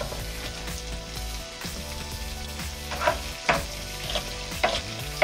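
Kitchen knife slicing a green bell pepper on a wooden cutting board, a run of sharp chops about two a second in the second half, over the steady sizzle of chicken heating in oil on a flat-top griddle.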